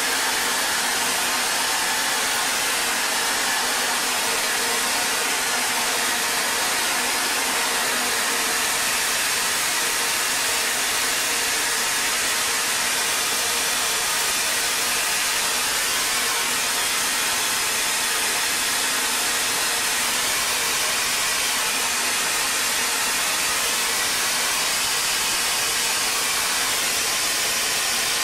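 A steady, unbroken hiss, spread evenly from middle pitches up into the highest, with no rhythm, breaks or changes.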